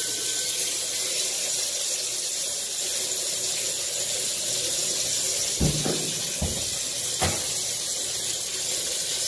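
Water streaming steadily from an LED shower panel's outlets, a constant hiss, with a few soft knocks around the middle.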